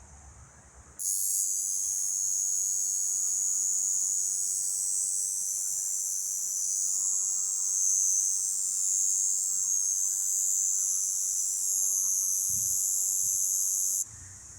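Cicada calling close up: a loud, steady, high-pitched buzz that starts abruptly about a second in and cuts off suddenly near the end.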